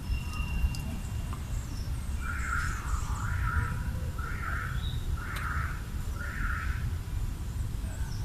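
Squirrel chattering: five raspy calls about a second apart, the territorial alarm chatter a squirrel uses to scare off a perceived threat. Faint high chirps sound alongside over a low background rumble.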